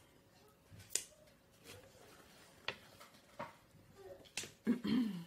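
Wet mouth sounds while eating: a few sharp lip and tongue smacks, then a short voiced murmur near the end.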